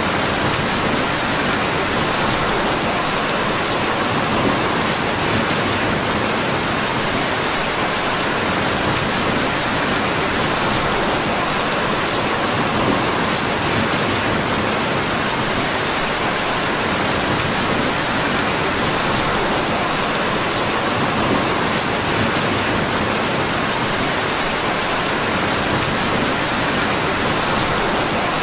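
Steady rain falling, an even hiss that holds level throughout, with a few faint ticks.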